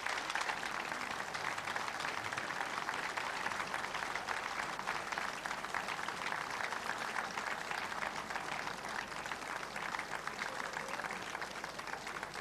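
Boxing-hall crowd applauding: dense, steady clapping.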